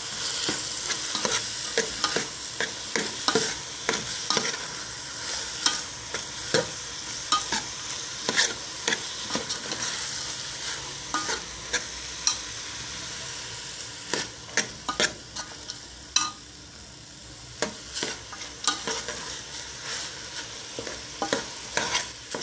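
Chicken and mixed vegetables sizzling in oil in a metal pot, with a metal spoon scraping and clinking against the pot in irregular strokes as it is stirred. The sizzling eases a little past the middle.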